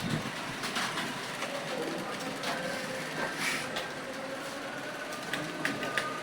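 Computer keyboard keys clicking at an uneven pace as someone types, over a steady background hiss.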